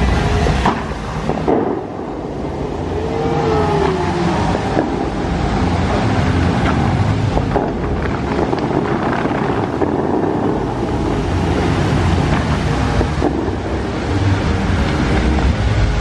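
Bellagio fountain water jets spraying and falling back into the lake: a steady rushing of water, with wind on the microphone.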